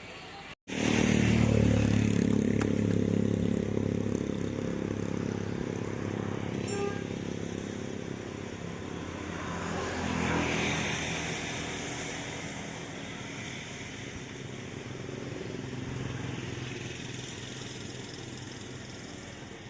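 A motor vehicle's engine running with a steady low hum. It comes in loud just after a short dropout, then slowly fades, with a brief swell about halfway through.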